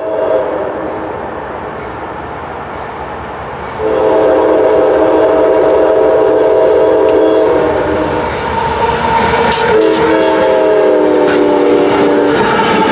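Diesel locomotive air horn sounding a chord of several notes in long blasts, two long ones, a short one, and another beginning near the end: the grade-crossing signal. Under it runs the rumble of the passing train.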